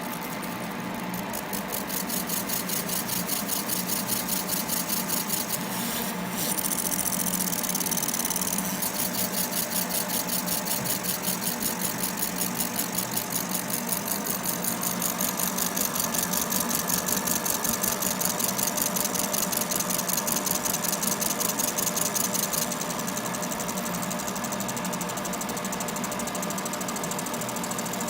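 Laser separating machine running a marking pass on iPhone back glass: a continuous rapid, evenly pulsing mechanical buzz over a steady hum. The upper hiss drops away about three-quarters of the way through.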